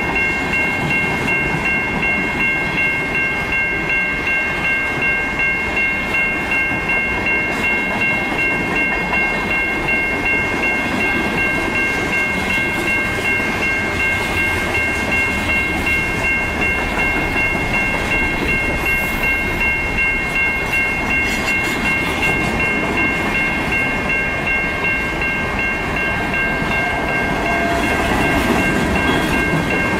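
Freight train rolling past, its wheels rumbling steadily on the rails. Over it runs an unchanging high ringing made of three tones.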